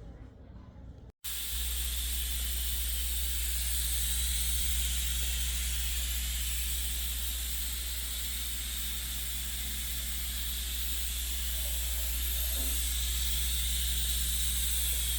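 Steady loud hiss over a deep low hum, starting abruptly about a second in after a brief cut-out.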